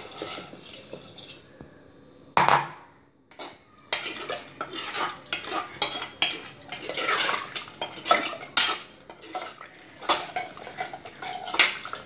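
Water poured into an aluminium pressure cooker, then a single loud knock. From about four seconds in, a ladle stirs the watery vegetable and dal mixture, clinking and scraping against the cooker's sides in a dense, irregular run.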